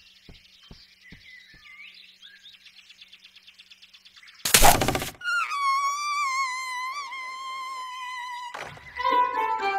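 Cartoon soundtrack: faint bird chirps and soft ticking, with a few low thuds in the first second or so. About halfway through a sudden loud snap and whoosh, the bent-branch snare trap springing and flinging the small rodent away, is followed by a long wavering high-pitched tone lasting about three seconds.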